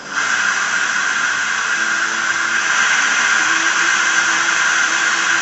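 Loud, steady hiss of compressed air that starts abruptly and cuts off suddenly right at the end.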